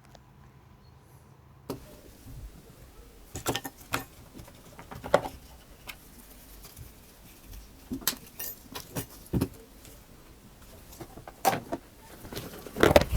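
Scattered small clicks and light clatters of a smartphone and small repair tools being handled on a workbench, with one sharp click every second or two after a quiet start.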